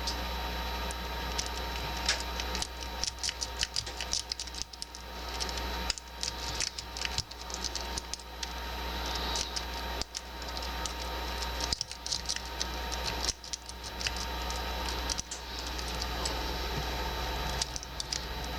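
Lock-pick rake scrubbing in the keyway of a laminated padlock under light tension, with rapid, irregular clusters of small clicks and scratches as the pins are jostled. The lock does not open. A steady low hum runs underneath.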